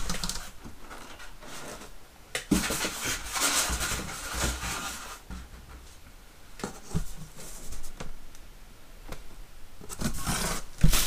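Packing being handled in a cardboard box: a few scattered light knocks and short stretches of soft rustling.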